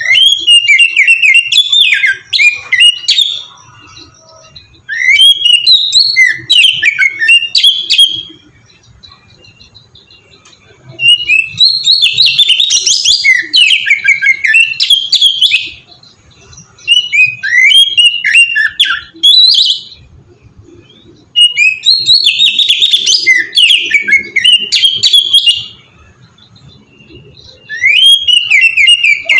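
Oriental magpie-robin (kacer) singing loudly, with quick, varied whistled and chirping phrases. The song comes in bouts of a few seconds, broken by short pauses.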